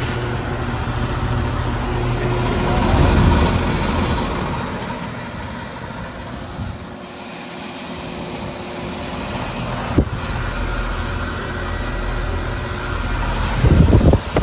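Outdoor heat pump units running in cool mode: a steady compressor hum under the rush of the condenser fans. The sound dips about halfway through and comes back, with a single sharp click about ten seconds in.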